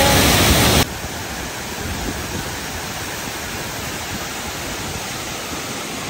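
Waterfall rushing, a steady roar of falling water. Just under a second in it drops abruptly to a softer, even rush.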